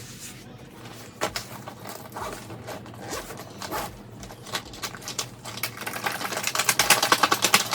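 A zipper being pulled in quick, scratchy strokes, getting louder near the end, as an item is struggled open.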